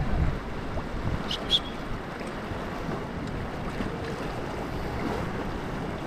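River water washing around a raft, with wind gusting on the microphone. Two short high chirps come about a second and a half in.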